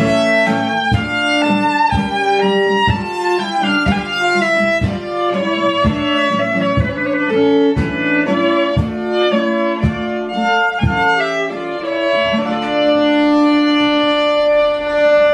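Live music with a violin playing a melody over a steady pulse of low plucked or struck notes; the music stops right at the end.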